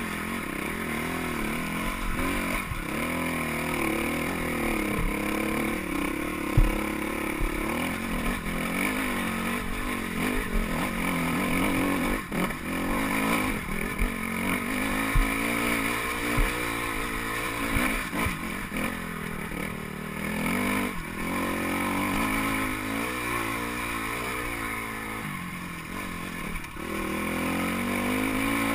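Dirt bike engine running under load on a rocky climb, its revs rising and falling with the throttle. A few sharp knocks stand out, the loudest about six and a half seconds in.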